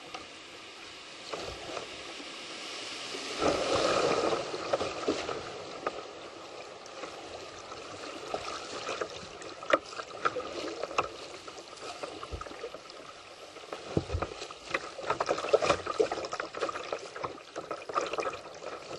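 Rushing river water splashing against a small paddled boat running through choppy rapids, with short sharp splashes and a few low thumps. It is loudest about three to five seconds in.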